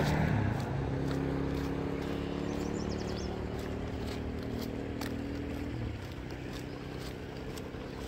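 A motor vehicle passing and moving off: its engine hum stays steady while growing fainter, then drops away about six seconds in. A brief high bird chirp comes a few seconds in.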